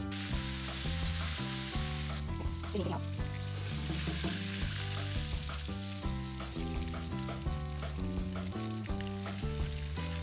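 Pieces of cornstarch-coated black cod deep-frying in hot oil in a wok: a loud sizzle in the first two seconds as a piece goes into the oil, then a steadier sizzle, over background music.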